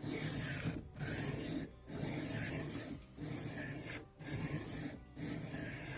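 MKM TPF knife edge being stroked across a 1000-grit diamond sharpening plate, about six even rasping strokes, roughly one a second. This is the fine-grit stage, working off a burr still left on one side of the edge.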